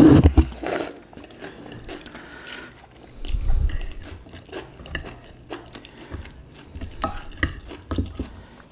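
Noodles slurped off a fork at the start, then chewing, with scattered sharp clicks of a metal fork against a glass baking dish of soup.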